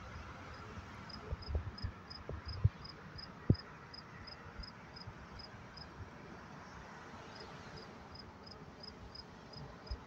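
A cricket chirping at night in an even, high-pitched rhythm of about four chirps a second, with a short pause near the middle. A few low thumps come in the first few seconds, the sharpest about three and a half seconds in.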